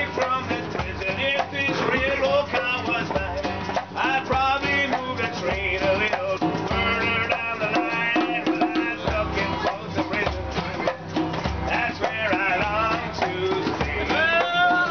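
Live acoustic music: a djembe hand drum beating a steady rhythm under a strummed acoustic guitar, with a voice singing over them.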